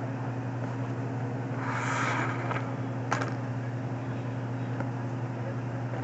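Steady low hum of laundromat machines running. About two seconds in there is a brief rustle, and just after three seconds a single sharp click.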